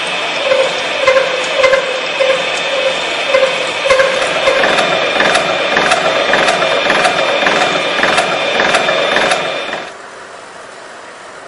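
UFM 4 universal milling machine straddle-milling a steel block with two side-and-face cutters under flood coolant: a loud steady machine whine with regular knocks from the cutter teeth, about two a second. Near the end the cutting noise stops suddenly, leaving a quieter steady hiss.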